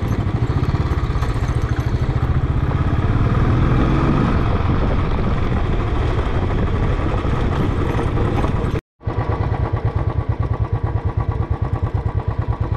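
Royal Enfield motorcycle engine running under way with an even, pulsing exhaust beat. The sound drops out completely for a moment just before nine seconds in, then the engine beat carries on.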